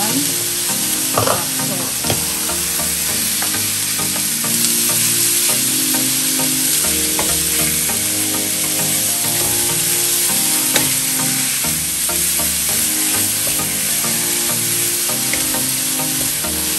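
Sliced beef and garlic sizzling in a hot nonstick wok while a wooden spatula stirs them, with occasional knocks and scrapes of the spatula on the pan, a louder one about a second in.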